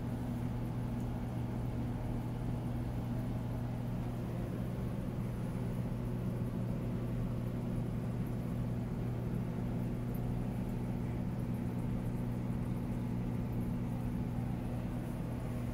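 Aquarium pump humming steadily with a low, even buzz, over a soft hiss of bubbling water from the tank's aeration.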